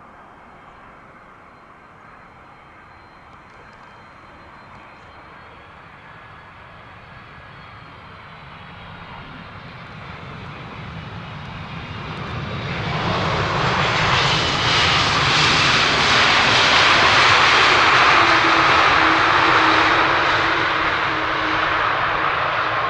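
Wide-body jet airliner on approach to land. Its engine noise grows from faint to loud over about ten seconds, peaks as it passes, then eases slightly near the end, with a steady whine in it late on.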